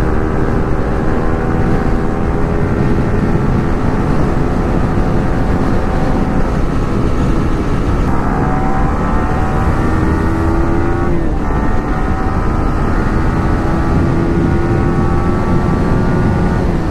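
Motorcycle engine running at highway speed, heard from the rider's own bike with heavy wind rumble on the microphone. The engine note climbs slowly and changes pitch abruptly twice, about halfway through and again a few seconds later.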